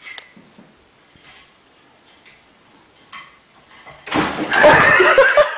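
Faint small knocks, then about four seconds in a sudden loud crash and clatter of hard objects knocked over, lasting well over a second.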